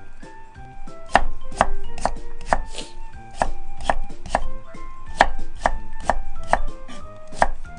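Kitchen knife chopping through sliced sweet potato onto a wooden cutting board, cutting it into thin strips, with sharp knocks about twice a second at an uneven pace.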